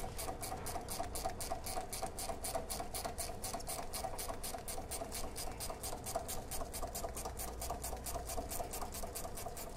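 Ratcheting wrench clicking steadily, about five clicks a second, as the nut is run off the rear sway bar link's top stud. The clicking stops at the end.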